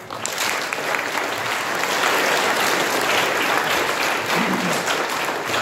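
Audience applause: many hands clapping, breaking out suddenly as the sung piece ends and holding steady.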